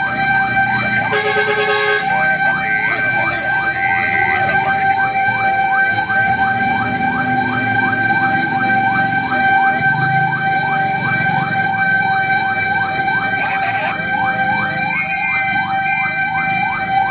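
Fire truck's electronic siren on a fast yelp, a rising sweep repeating about three to four times a second over a steady tone, heard from inside the truck's cab with the engine and road noise underneath. A short loud horn blast sounds about a second in.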